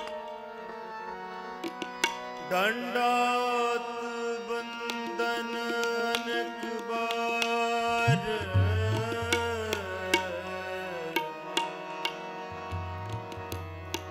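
Sikh shabad kirtan in Raag Todi: harmonium holding steady notes under tabla strokes, with a wordless sung line that glides and bends between pitches. The tabla's deep bass drum rings out in long tones twice in the second half.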